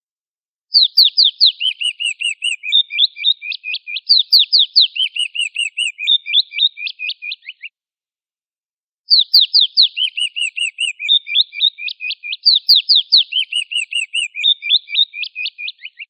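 Raptor call (sold as an eagle call): a fast run of high whistled notes, each sliding downward, several a second for about seven seconds. After a short pause the same run repeats as a looped recording.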